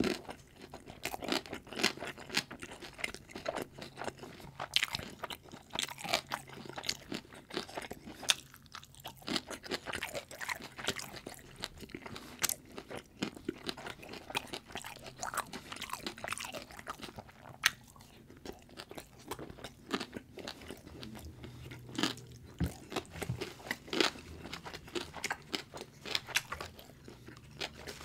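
Close-miked crunching and chewing of food in the mouth: an irregular, rapid run of sharp crunches and bites.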